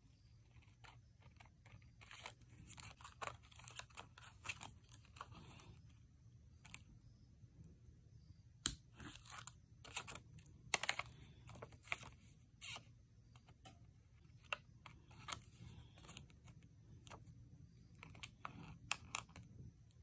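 Scissors snipping through a sheet of stickers, with the crinkle and rustle of the cut sticker pieces being handled: a scattered string of short, sharp snips and rustles, the sharpest clustered a little before and after the middle.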